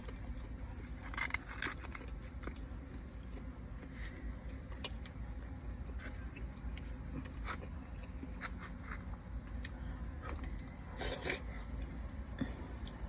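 Close-up eating sounds: chewing, with scattered clicks and short scrapes of a plastic fork in a foam cup, the longest scrape near the end, over a steady low rumble.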